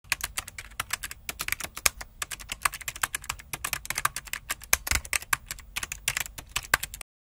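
Computer keyboard typing sound effect: rapid, uneven keystroke clicks that go with a caption being typed out on screen. They stop suddenly near the end.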